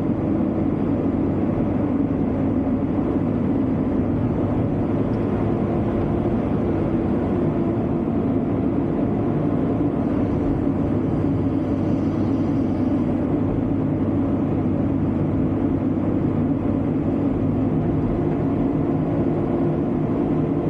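Excavator's diesel engine running steadily at an even speed.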